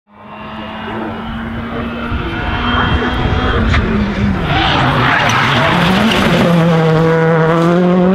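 Citroën C3 R5 rally car's turbocharged four-cylinder engine, fading in as the car comes into a tight bend. The revs drop and waver through the corner, with a rush of tyre-scrub noise about halfway, then the engine pulls away, holding high revs.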